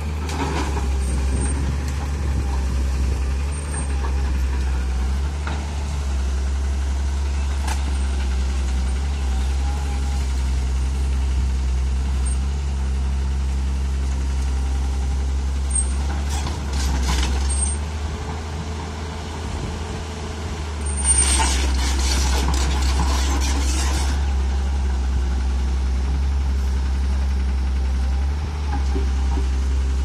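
Tata Hitachi crawler excavator's diesel engine running steadily with a deep hum as the machine works its boom and bucket. A louder, hissing, rattling stretch of about three seconds comes about two-thirds of the way through.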